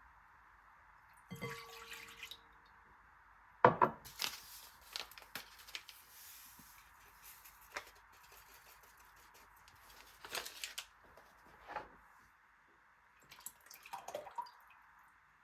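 Kitchen handling sounds: a short ringing clink a little over a second in, then sharp knocks and clatters, with a few seconds of hissing like water or rustling in between.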